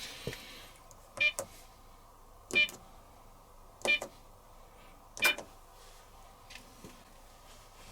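Four short beeps, each with a click, about one and a quarter seconds apart, from buttons being pressed on an Electrolux Wascator W355H washing machine's control panel.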